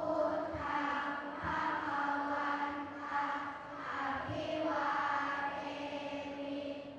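Buddhist chanting by many voices in unison: a steady, recited tone with phrases that swell and fall about once a second.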